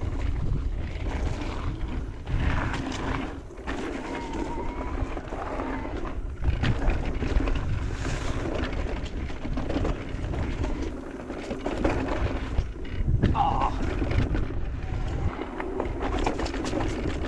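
Electric mountain bike riding along a dirt trail: tyres rolling, the bike rattling over bumps and wind buffeting the microphone, with a faint steady hum running underneath.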